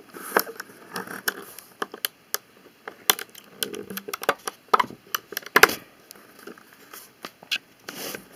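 Plastic Lego pieces clicking, tapping and scraping under fingers as a rubber band is stretched and hooked around them: a run of irregular sharp clicks, the loudest about five and a half seconds in.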